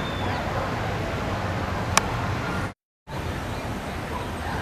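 Steady outdoor city background noise heard from high up, a hiss and low rumble of distant traffic and wind. There is a single sharp click about two seconds in, and a brief complete dropout just under three seconds in.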